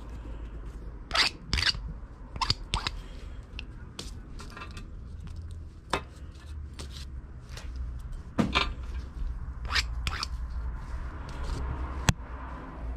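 Hand file scraping the rough spots off a freshly cast lead jig head in short, irregular strokes, deburring sharp points left by the mold. A sharp click near the end.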